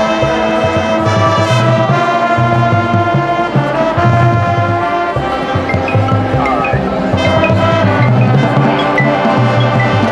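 High school marching band playing a loud, brass-heavy passage: sustained brass chords over a pulsing low line.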